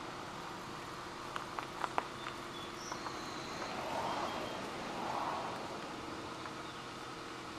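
Steady outdoor background noise with a few faint clicks and two soft swells of noise about halfway through.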